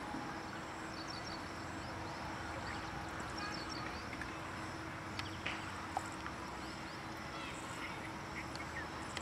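Outdoor field ambience: small birds chirping in short repeated phrases over a faint steady hum and background hiss, with a couple of light clicks a little past halfway.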